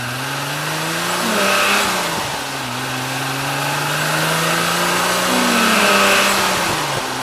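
Venturi Atlantique 300's 3-litre single-turbo PRV V6 accelerating hard through the gears: the engine note climbs, drops at a gear change about two seconds in, climbs again more slowly and eases off near the end. A higher turbo whistle rises above the engine at the top of each pull.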